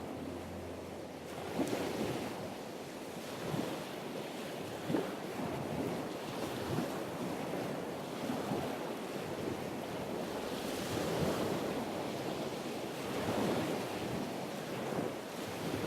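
A rushing noise with no steady pitch that swells and eases every second or two, like surf.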